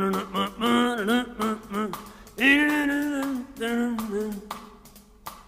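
Novelty song playing: sung vocal phrases in short bursts with pauses between them, the longest about halfway through.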